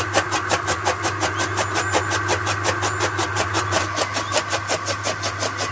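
Fodder chaff cutter with a large flywheel running under power and chopping green fodder: a fast, even chopping at about eight cuts a second over a steady low hum.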